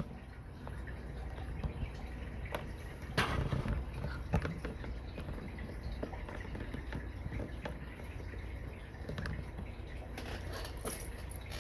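Small tools being handled while a lock-gutting kit is sorted for the right size of plug follower: scattered light clicks and taps, with sharper clicks about three seconds and about four and a half seconds in.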